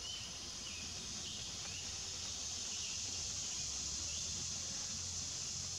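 Insects buzzing steadily in a high, even drone outdoors.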